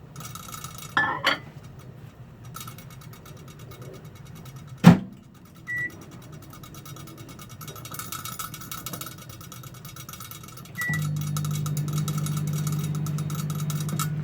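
Microwave oven being operated: a sharp clunk about five seconds in, a short high beep a second later, then another beep near the end and the oven starts running with a steady low hum.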